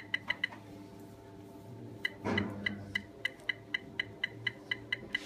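Materials testing machine loading a 4140 cold-rolled steel specimen: a low steady hum under rapid, evenly spaced short ticks. The ticks break off about half a second in and resume after about two seconds, with a brief rustling noise just after they return.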